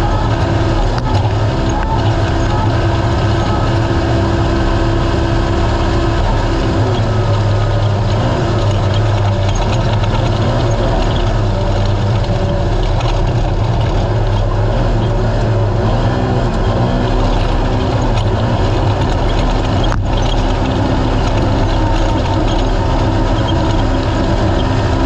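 Race UTV's naturally aspirated engine running steadily under power, its pitch wavering up and down with the throttle, over a constant rush of noise from the ride.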